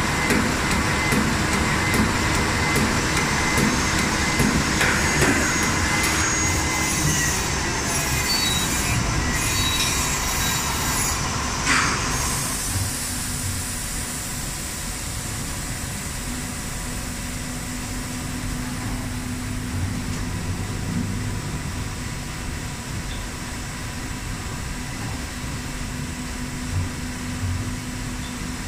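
Cylinder flanging machine forming the rim of a large stainless-steel shell: metal squealing and scraping for about the first twelve seconds, ending in a sharp knock, then a steadier, lower machine hum.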